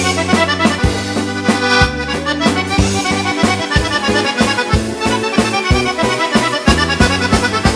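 Organetto (diatonic button accordion) playing a waltz: a busy melody over a steady pattern of short bass and chord notes.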